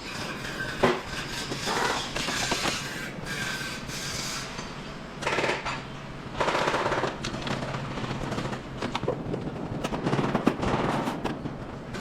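Car body repair work: irregular sharp knocks mixed with short bursts of noise lasting up to about a second.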